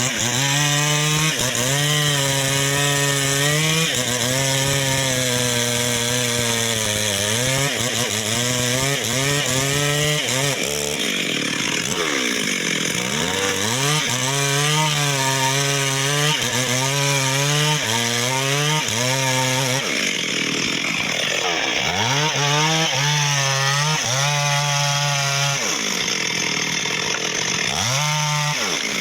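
Chainsaw engine running hard while cutting sengon wood, its pitch sagging under load and climbing back again and again.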